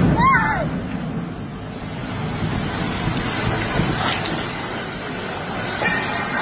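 A short high-pitched cry near the start, rising and falling once. After it comes a steady rushing noise with a low rumble, like wind on the microphone.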